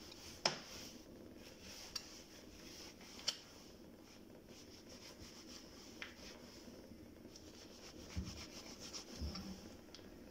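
Faint handling noises: light rubbing, with a few small sharp clicks scattered through and two soft low knocks near the end.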